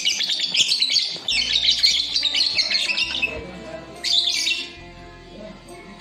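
Rosy-faced lovebirds chattering in rapid, shrill chirps for about three seconds, then a second short burst around four seconds in.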